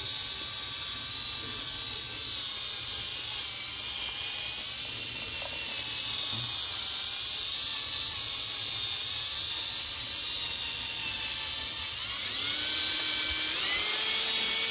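Milwaukee cordless drill spinning a hard foam polishing pad against a black plastic motorcycle mirror housing to polish out scratches, its motor whining steadily. Near the end it speeds up in two steps, and the whine rises each time.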